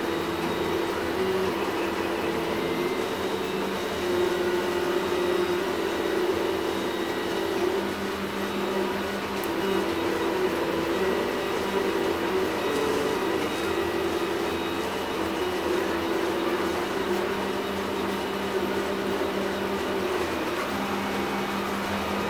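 MendelMax 3D printer's stepper motors whining as the Budaschnozzle hot end prints ABS at a reduced speed, the hum stepping between a few steady pitches as the head changes moves, over a steady background hiss.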